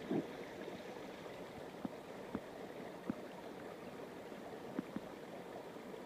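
Steady rushing of flowing water, with a few short, sharp clicks over it.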